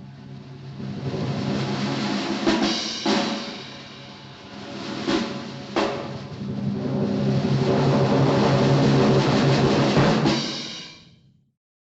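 A drum roll that swells, dips and swells again, struck through with a few sharp hits, then fades out near the end.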